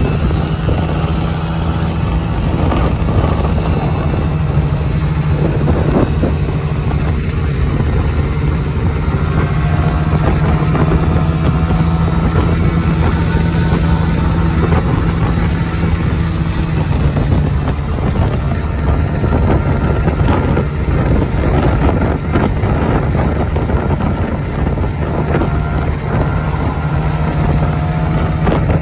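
Mondial Wing 50i 50cc fuel-injected scooter engine running steadily at cruising speed, around 52–54 km/h and close to its top speed on the flat, with wind rushing over the microphone. The engine note dips slightly about two-thirds of the way through.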